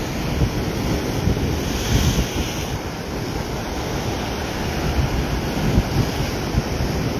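Ocean surf breaking and washing over a sandstone rock shelf, with wind buffeting the microphone; a brighter hiss of washing water swells briefly about two seconds in.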